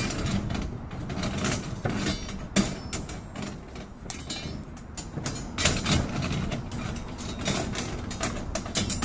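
Steel rebar and tie wire clinking and rattling as bars are tied by hand with pliers: a quick, irregular string of metallic clicks and clatters over a steady low background noise.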